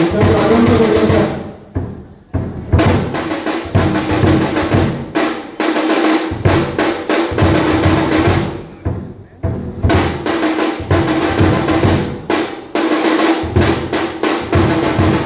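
Loud, fast drumming with rapid drum rolls over music with a steady held tone, accompanying the performance; the drumming drops off briefly about two seconds in and again near nine seconds.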